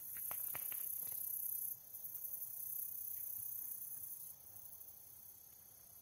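Steady high-pitched shrill of insects such as crickets, which drops down in loudness about two seconds in and again near the four-second mark. A few faint clicks sound in the first second.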